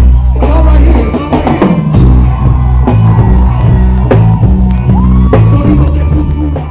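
Live reggae band playing: a heavy bass line and drum kit, with a gliding melody line above.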